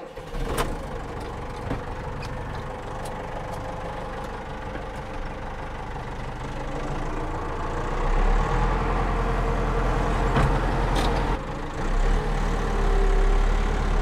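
Tractor engine running, heard from inside the cab, growing louder about eight seconds in and again near the end, with a few sharp knocks along the way.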